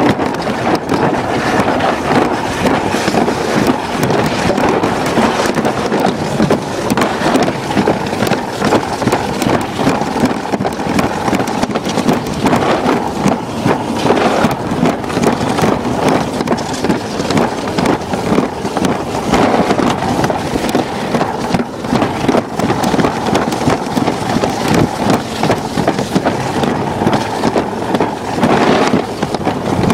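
Alpine slide sled running down its track: a loud, continuous rolling rumble and rattle, with wind buffeting the microphone.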